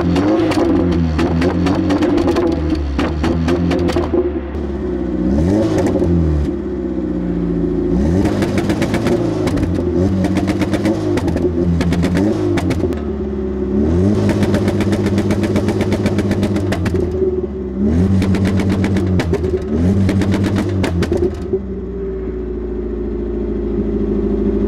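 A ute's engine revved repeatedly into a home-built spark-cut rev limiter: at the limit the pitch holds flat and the engine runs with a rapid rattle of pops from the exhaust as the ignition is cut, then drops back between pulls. Toward the end it holds steady without the popping.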